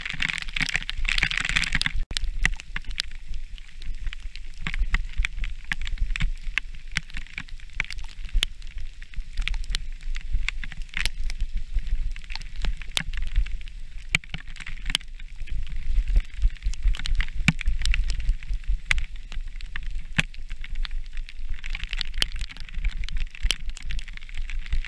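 Mountain bike riding on a wet, rough trail, heard from a camera on the bike or rider: a steady low wind rumble on the microphone and frequent sharp clicks and knocks as the bike jolts along. A hissing wash, from the tyres on the wet ground, comes in near the start and again near the end. The sound changes abruptly about two seconds in.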